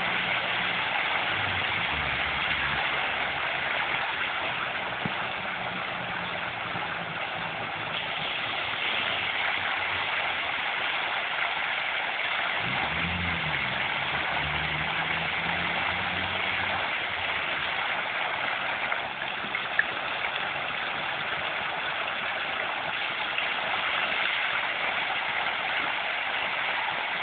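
Fountain jets spraying and splashing steadily into the pool, a continuous hiss of falling water. A fainter low hum that steps up and down in pitch runs beneath it for roughly the first half.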